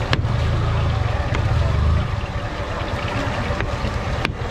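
Steady outdoor street noise with a low rumble that swells for the first couple of seconds, and a single sharp click of a knife on a plastic cutting board near the end as cucumber slicing begins.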